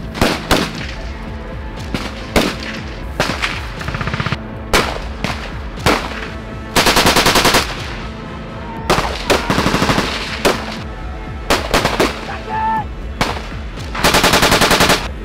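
Machine-gun fire in rapid bursts of about a second each, three times, with single shots and short bursts between.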